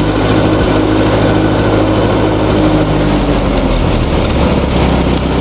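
Massey Ferguson 35 tractor's Continental Z-series gasoline engine revved up and held at raised speed, then easing back toward idle about four seconds in. It runs steadily under its newly replaced ball-type governor, which now holds the revs instead of letting the engine over-rev.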